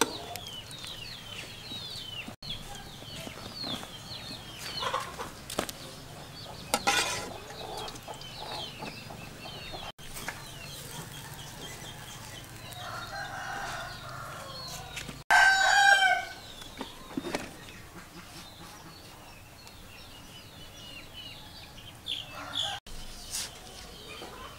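Backyard chickens: a rooster crows loudly once a little past the middle, with chickens clucking and small birds chirping throughout.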